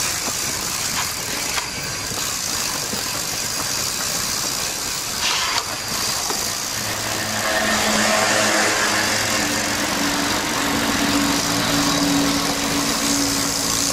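A motor vehicle's engine running steadily over street noise, its hum growing clearer about halfway through.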